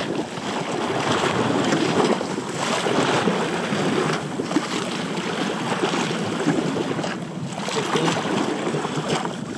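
Wind buffeting the microphone, with sea water slapping and splashing against the side of the small boat's hull.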